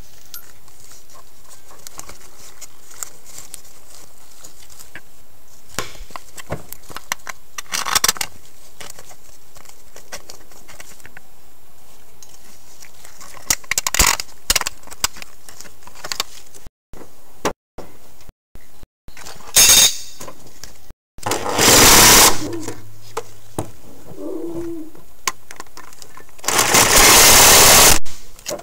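Scattered metal clicks and knocks of a crankshaft balancer being handled and slid onto the crank nose, over a steady hiss. Near the end come two loud bursts of rattling noise, about a second and a second and a half long.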